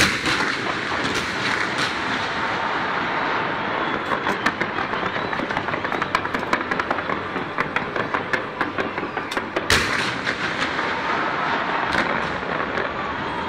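Fireworks bursting in rapid succession: a dense crackling with many sharp bangs, the loudest about ten seconds in.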